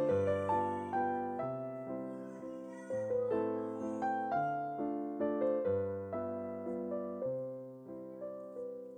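Background piano music, notes and chords struck about once or twice a second, each ringing out and fading before the next.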